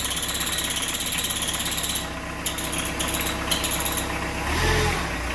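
Kubota B-series compact tractor's diesel engine idling shortly after its first start since being put back in, with a brief rise in revs about four and a half seconds in.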